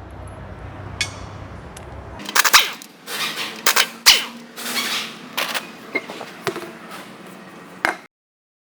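Irregular sharp metallic clanks and clicks of tools and parts being handled while a car's wheel is taken off. They come in quick clusters for about six seconds, then stop abruptly.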